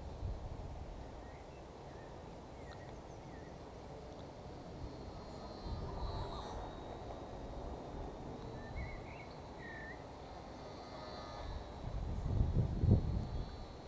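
Wind gusting on the microphone in an open meadow, strongest near the end, with a few short bird chirps in between.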